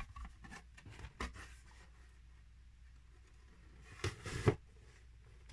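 Faint handling noise of a plastic model kit and its cardboard box: a few light clicks early, then a brief rustle and scrape about four seconds in.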